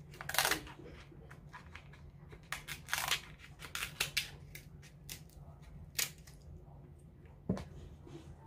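Kitchen shears snipping and crunching through the hard shell of a boiled Alaskan king crab leg. The sharp cracks come irregularly, about seven or eight in all, and are loudest about half a second in and around three seconds in.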